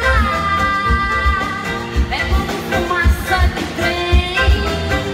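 Live band music: singing over accordion and guitars, with a steady low drum beat about two to three thumps a second.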